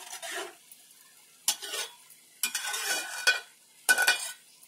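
Metal spoon stirring cooked rice in a hammered steel pot, scraping against the pot in four short bouts with a faint metallic ring.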